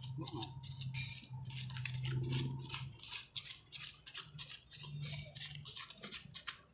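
Repeated gritty scraping of digging into hard, sandy soil around a deep-buried ube (purple yam) tuber, in quick irregular strokes.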